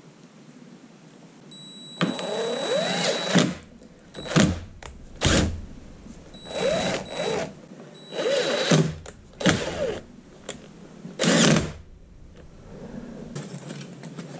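Cordless DeWalt impact driver run in about seven short bursts, its motor whining as it speeds up and slows down, driving the screws into a Duramax fuel filter head.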